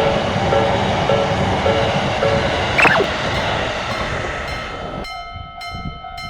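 A train passing a level crossing: a loud, steady rush of train noise with the crossing bell ringing faintly underneath, and a short falling squeal about three seconds in. About five seconds in the train noise cuts off suddenly, leaving the crossing bell ringing alone in rapid, even strikes.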